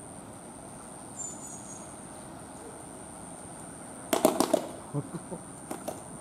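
A young western gorilla clapping her hands: a quick run of about five loud claps about four seconds in, then a few scattered softer claps.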